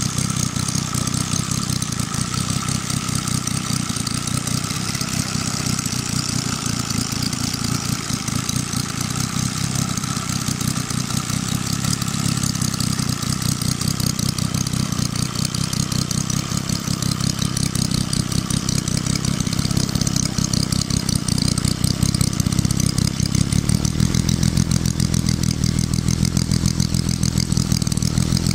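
Scratch-built three-cylinder four-stroke model ship-diesel engine running evenly without stutter, a rapid steady beat of firing pulses, growing somewhat louder in the last several seconds.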